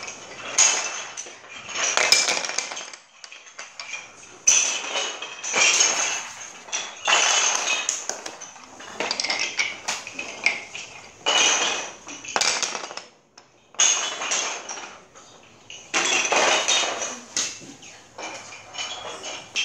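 Wooden yut sticks thrown onto a wooden parquet floor in a game of yut nori, clattering again and again, a burst every second or two.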